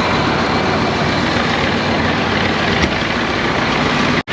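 Massey Ferguson 1155 tractor's Perkins V8 diesel running steadily, warming up after a cold start. The sound cuts off abruptly just before the end.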